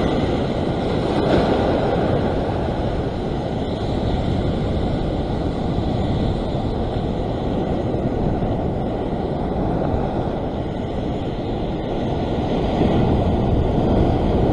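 Heavy ocean surf breaking and washing over a rock ledge, with wind buffeting the microphone; the wash swells louder near the end.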